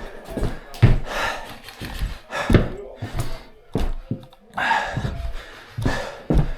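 Irregular thumps and knocks close to the microphone, with rustling noise in between, as of an airsoft player moving with gear on.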